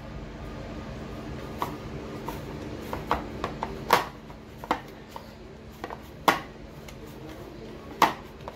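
Hands kneading rice-flour dough in a white ceramic bowl, with irregular sharp knocks and clacks from the bowl as it is worked. The loudest knocks come about four, six and eight seconds in, over a faint steady hum.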